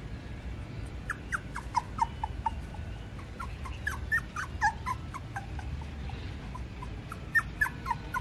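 Young puppy whimpering in many short, high squeaks that fall in pitch, coming in clusters about a second in, around four seconds, and again near the end.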